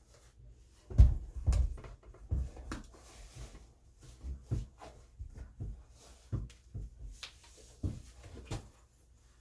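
Irregular soft thumps and rustling of a zip-up tennis shoe being handled and pulled onto a foot, the loudest thump about a second in.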